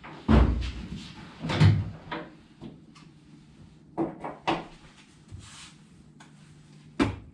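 Irregular knocks and clunks of tools and metal engine parts being handled, with two heavier thumps near the start and lighter knocks later.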